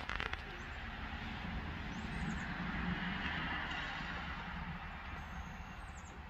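A vehicle passing by: its noise swells to a peak about three seconds in and then fades. A few clicks come at the very start.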